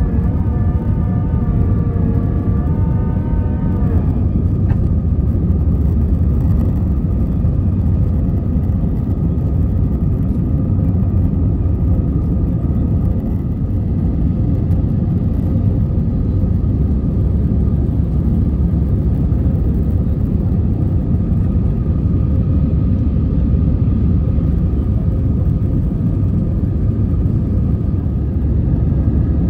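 Cabin noise of an Airbus A320-214 climbing after takeoff, heard from a window seat over the wing: the steady rumble of its CFM56 engines under climb power, mixed with the rush of air. Over the first four seconds a set of whining tones rises slightly in pitch, then stops.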